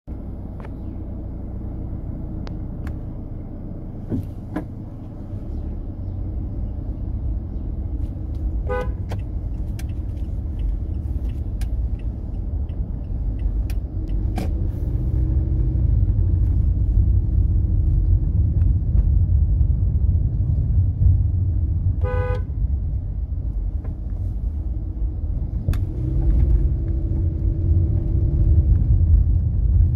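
Low steady rumble of road traffic that slowly grows louder, with two short vehicle horn toots, one about nine seconds in and one about twenty-two seconds in, and scattered light clicks.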